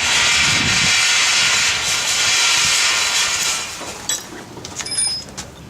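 A loud steady hiss, as of a pressurised jet, lasting about three and a half seconds and then stopping, followed by a few light metallic clicks.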